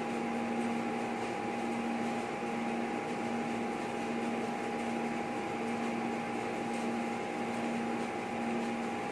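A steady hum with two steady tones, one low and one mid-pitched, over a faint even hiss.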